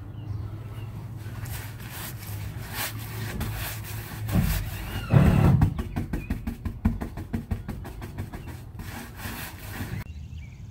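Paintbrush scrubbing paint onto a plywood floor and its cut edges in quick back-and-forth strokes, with one louder low bump about five seconds in.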